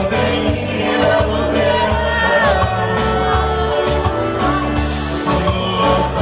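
Live band music with a singer, a bass line moving note to note under the vocal.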